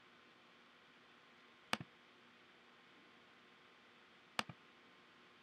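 Two quick double-clicks on a computer's pointing device, one about a second and a half in and another near the end, over faint room hiss. They are clicks to open folders in a file-picker dialog.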